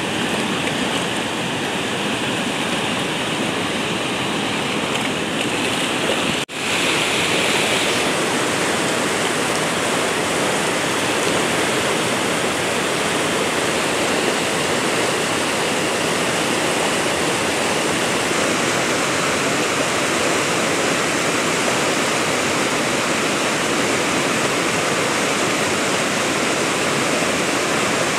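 Swift mountain river rushing over rocks and rapids: a loud, steady rush of water, with one brief break about six seconds in.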